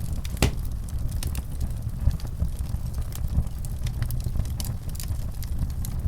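Wood fire in a fireplace crackling, with frequent short pops and a sharper pop about half a second in, over a steady low rumble.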